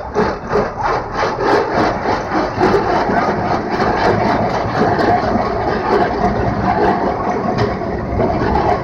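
Calcutta Tramways electric tram running along its track, its car body and wheels rattling with a quick, regular clatter over a steady rumble.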